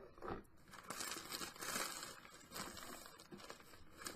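Faint rustling and crinkling of paper and cardstock being handled, in several uneven spells.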